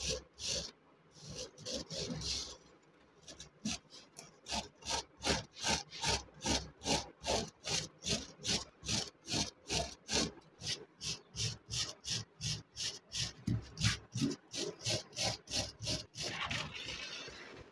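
Hand wire brush scrubbing rust off the iron jaws of old blacksmith tongs, in quick back-and-forth strokes about three a second, ending in one longer, steady scrub.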